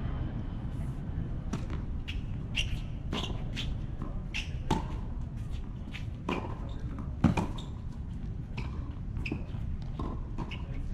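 Tennis play on a hard court: a string of sharp, irregular hits of the tennis ball off rackets and court, mixed with shoe scuffs, over a steady low rumble.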